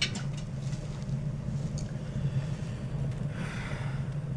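Steady low hum of room ambience, with a few faint clicks at the start and a soft breath about three and a half seconds in.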